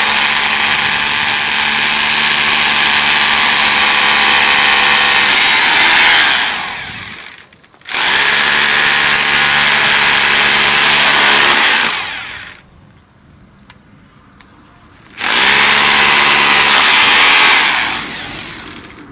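Power drill boring holes into the stones of a masonry gate pillar for stainless tie rods, run in three long bursts of about six, four and three seconds, each fading off at its end.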